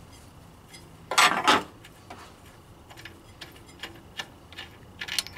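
Irregular metal clicks and clinks as the serpentine belt tensioner pulley and its bolt are worked loose by hand, with a louder scraping clatter about a second in and another short one near the end.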